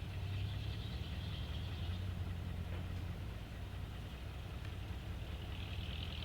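Engine of a heavy earthmoving machine running steadily at a low idle.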